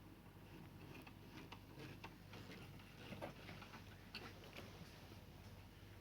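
Faint, irregular small clicks and light taps, several a second at times, from tools and parts being handled during an LCD TV power supply board swap, over a steady low hum.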